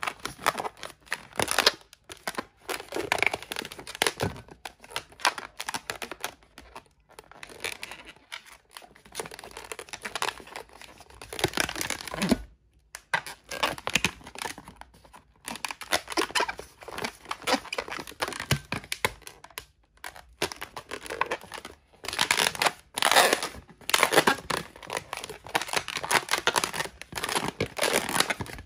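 Inflated latex modelling balloons rubbing and twisting under the hands as they are shaped, in irregular bursts with a couple of short pauses.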